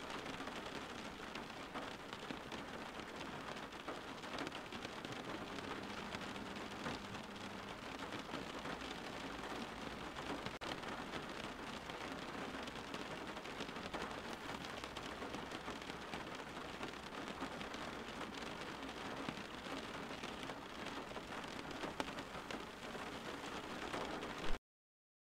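Steady rain: an even hiss with a dense patter of individual drops, cutting off suddenly near the end.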